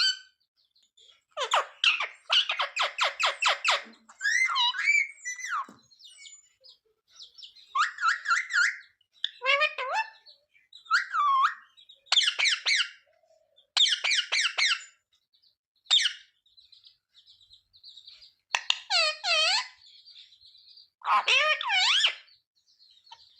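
Indian ringneck parakeet calling in a string of short, shrill bursts separated by brief pauses. Near the start there is a rapid run of harsh, pulsed notes.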